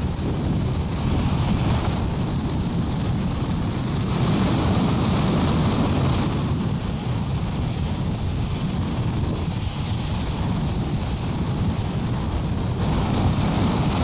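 Strong wind buffeting the microphone over the rush of choppy sea surf breaking.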